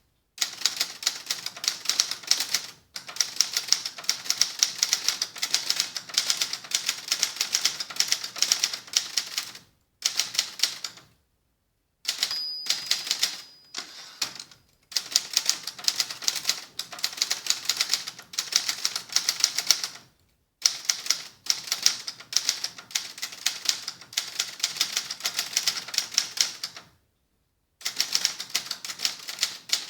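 Adler Gabriele 25 manual typewriter being typed on, its cover off: fast runs of typebar strikes broken by short pauses every few seconds. A brief ringing tone about twelve seconds in.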